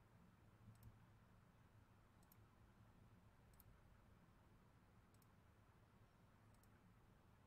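Near silence with five faint computer-mouse clicks, about one every second and a half, over a low steady hum.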